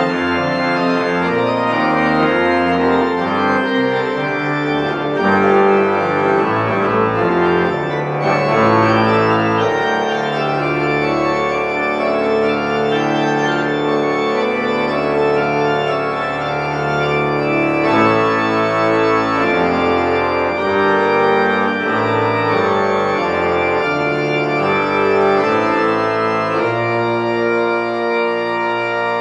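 Church organ playing a slow piece in sustained chords over a moving bass line.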